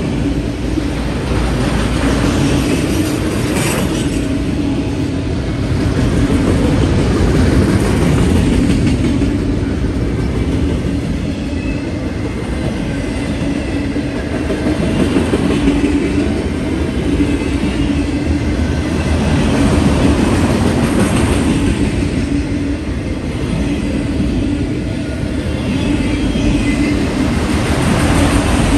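Enclosed autorack freight cars rolling past close by: a steady rumble and clatter of steel wheels on the rails, swelling and easing every few seconds.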